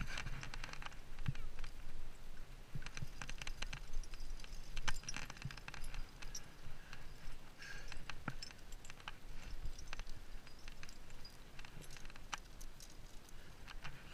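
Irregular clinks and scuffs of a climber moving up a rock crack: climbing gear jangling on the harness, and hands and rock shoes scraping the rock, over a low steady rumble.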